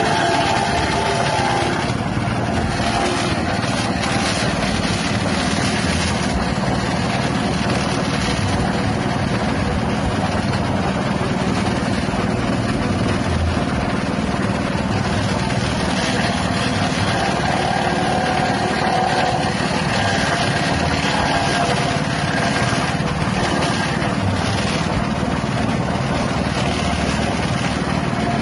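Grass chopper machine driven by a small 6.5 hp petrol engine, running steadily.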